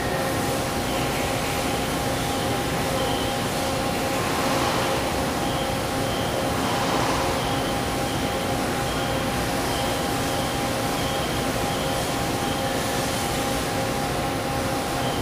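Steady machine hum from a large vertical CNC rotary table being run from its pendant control, with two steady whine tones and a fainter high whine that comes and goes, over factory background noise.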